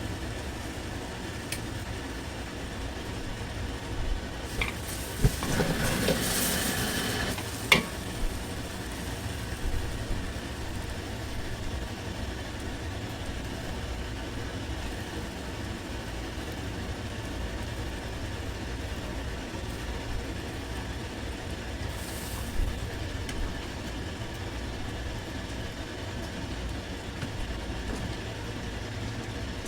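Restaurant kitchen cooking sounds: a steady low rumble of burners and extraction, with a burst of sizzling hiss and sharp metal clanks from wok cooking about five to eight seconds in.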